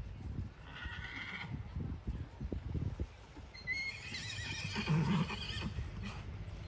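A horse whinnying: a short call about a second in, then a longer, wavering whinny from about four seconds in. Under it, the soft hoofbeats of a horse trotting on sand arena footing.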